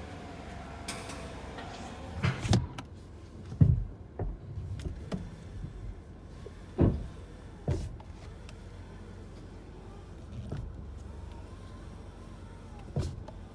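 A car's steering making a series of irregular low clunks as the wheel is turned, about eight knocks spread over the stretch, the loudest a few seconds in. This is the steering noise the car has, heard over a steady low hum.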